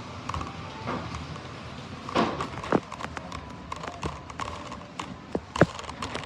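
Scattered knocks and clicks of groceries being picked up and handled, over a steady store hum, with the loudest knocks about two seconds in and again near the end.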